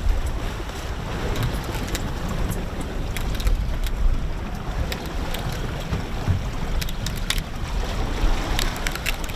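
Wind buffeting the microphone over the wash of waves against a boat's hull at sea, with a low rumble and scattered sharp clicks.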